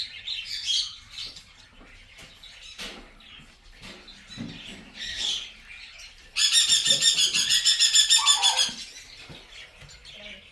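Short bird chirps, then about six seconds in a baby parrot's loud, rapid, pulsing food-begging call, about seven pulses a second for over two seconds, as a hand-fed chick makes.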